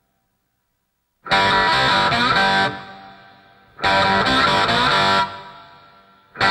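Distorted electric guitar music in loud stabs: after about a second of silence, two blasts of roughly a second and a half each with a short gap between, and a third starting near the end.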